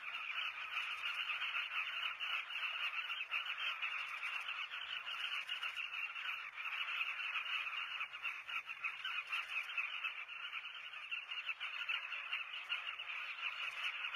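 Breeding colony of southern carmine bee-eaters calling all together: a dense, unbroken chatter of many short overlapping calls.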